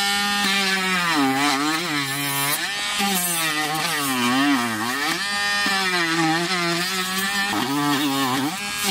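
Dremel rotary tool with a sanding drum whining as it grinds high spots off cured epoxy resin. Its pitch sags each time the drum is pressed into the resin and rises again as it eases off.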